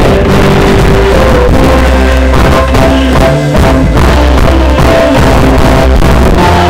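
Loud live church music: a choir singing held notes over a band with bass and drums.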